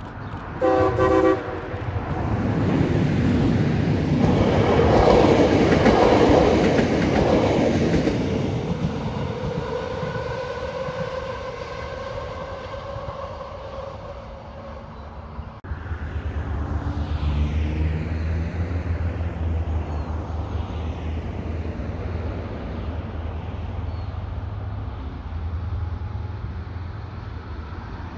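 A short, loud diesel locomotive horn blast about a second in, followed by a rushing noise that swells and fades over several seconds. From about halfway on, the steady low throb of approaching KiwiRail DL-class diesel-electric locomotives.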